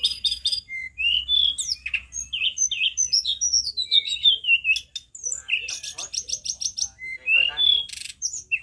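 Male hill blue flycatcher (tledekan gunung) singing a loud, continuous song of quick high whistled notes sliding up and down, broken by fast stuttering runs of repeated notes about five and a half seconds in and again near the end.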